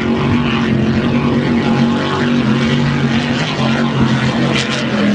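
Racing powerboat's engines running at high speed, a loud steady drone that holds its pitch.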